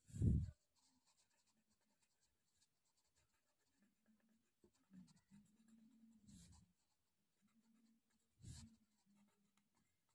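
Mechanical pencil scratching short strokes on drawing paper, faint. A dull thump right at the start is the loudest sound, and there are softer bumps about six and eight and a half seconds in.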